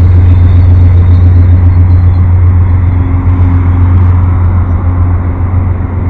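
Amtrak passenger cars rolling past at close range: a loud, steady, low rumble of wheels on rails.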